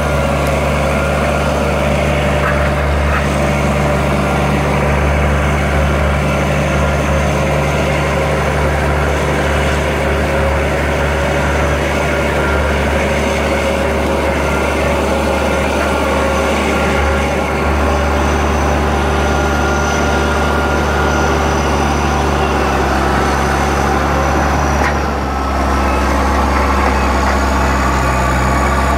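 Caterpillar D6C crawler bulldozer's diesel engine running steadily under load as the blade shoves a large boulder. The engine sound briefly dips near the end before picking up again.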